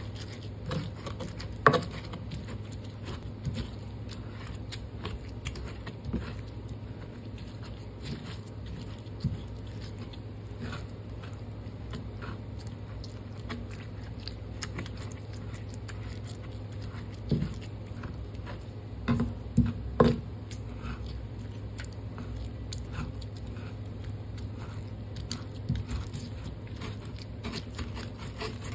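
Stone pestle (ulekan) crushing and grinding fresh chillies, tomatoes and shallots in a clay mortar (cobek) to make sambal: wet squishing and rubbing with frequent light knocks of stone on clay. A few louder knocks come near the start and again about two-thirds of the way through.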